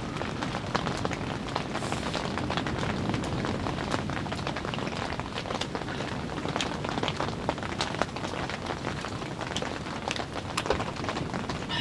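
Rain falling on a surface: a steady hiss with many sharp drop hits scattered through it.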